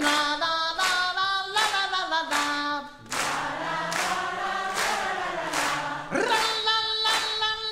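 A concert audience singing along in unison, in long held notes, with steady handclaps on the beat.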